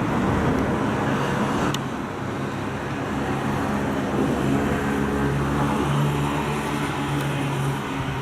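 Road traffic: car engines and tyre noise. From about two seconds in, a steady low engine hum grows stronger, as from a vehicle running close by.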